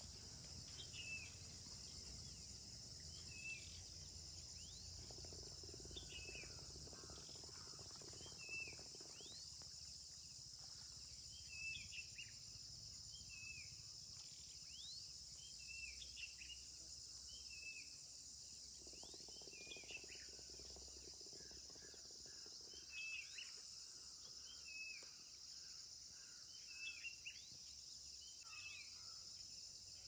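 Steady high-pitched insect chorus of crickets, with short sweeping chirps repeating every second or two over a faint low rumble.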